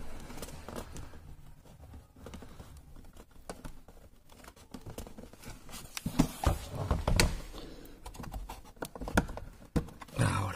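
Irregular small clicks, taps and scrapes as a thin tool and fingers work at the plastic clip of a car door speaker's wiring connector to release it, with louder knocks about six to seven seconds in and again near the end.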